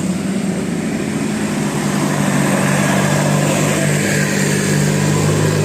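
Large bus engine running with a steady low drone that grows louder from about two seconds in, as the bus comes closer.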